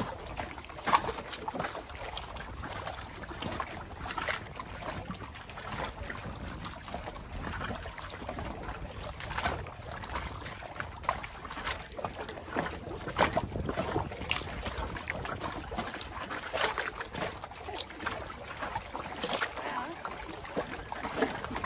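Lake water lapping and splashing against a floating dock, with scattered drips and splashes as a wet find is pulled up out of the water on a magnet rope.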